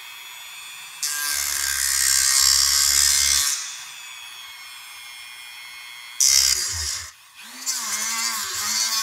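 Handheld rotary tool with a thin cutting disc spinning with a steady high whine, cutting into the plastic housing of an LED bulb along the seam of its lens. The cut turns into a much louder, harsh grinding rasp twice, about a second in for a couple of seconds and again from about six seconds on.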